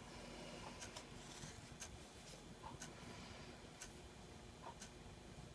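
A clock ticking faintly and evenly, about once a second, over quiet room tone with a low steady hum.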